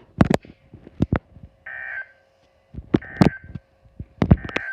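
EAS end-of-message data bursts on NOAA Weather Radio: three short buzzy digital tone bursts a little over a second apart. Sharp static clicks and pops from the radio reception are scattered through them.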